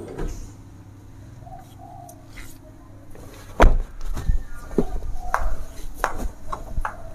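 A car door on a Daihatsu Sirion slamming shut with one loud thud about halfway through, followed by a few lighter knocks and clicks.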